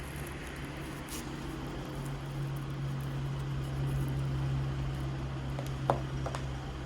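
A steady low hum over a faint background hiss, with a sharp click near the end.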